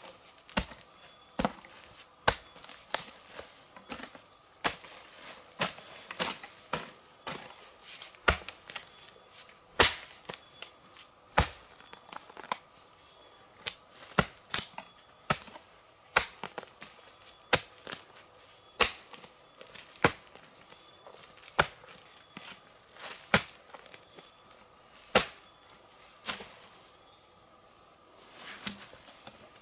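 Irregular series of sharp strikes, one or two a second, some much louder than others.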